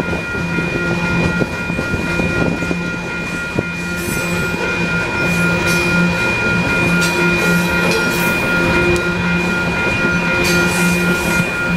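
Loaded coal train's hopper cars rolling past a grade crossing: a steady rumble and rattle of wheels and car bodies, with a few sharp clicks of wheels over rail joints in the first few seconds. A steady high ringing tone runs underneath.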